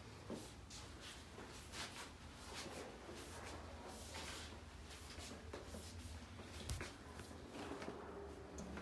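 Quiet small-room sounds of a person moving about: soft rustles, shuffling and scattered light taps over a low steady hum, with one sharper knock about two-thirds of the way through.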